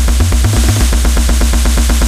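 Driving techno: a deep, repeating bass riff under fast, even percussion hits.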